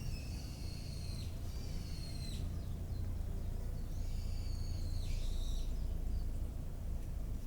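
A songbird singing clear, sustained high whistled phrases: two about a second long at the start, and another roughly halfway through. A steady low rumble runs underneath.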